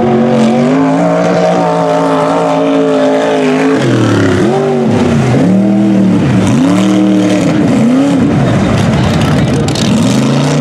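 Mud truck engine running hard. From about four seconds in it revs up and down in quick repeated swells, about one a second, as the truck churns through the mud pit.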